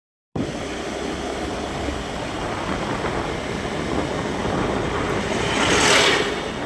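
Steady rushing noise of a vehicle travelling along the road. It swells to a louder, hissing rush about six seconds in, then eases.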